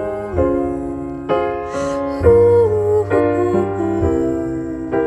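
Solo piano playing slow, held chords, a new chord struck about once a second.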